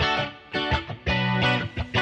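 Instrumental background music led by a guitar playing rhythmic chords.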